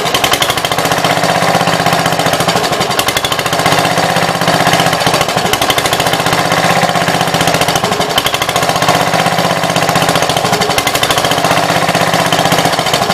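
1966 Gravely C10 tractor's single-cylinder engine running steadily with rapid, even firing pulses. It is running on the newly fitted battery ignition coil, so the no-spark fault is cured.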